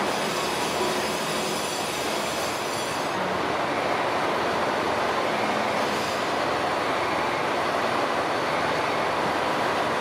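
Kyoto Tango Railway 'Tango no Umi' limited express train moving slowly along the platform: a steady running noise from its wheels and underfloor gear, with a faint high whine that fades out about three seconds in.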